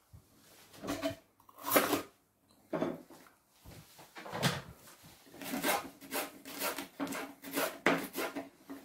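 Kitchen knife chopping a green pepper on a plastic cutting board, a run of quick short strokes in the second half, after a few separate knocks from plates and the board being handled.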